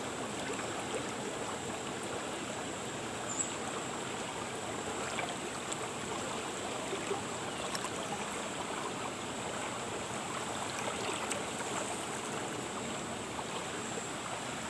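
Water rushing steadily down a concrete-lined irrigation channel, an even, unbroken flow noise.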